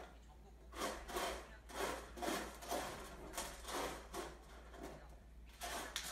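Turkish Angora cat scratching at cat litter in a plastic tub to bury its waste: a run of gritty scraping strokes, about two a second, starting about a second in.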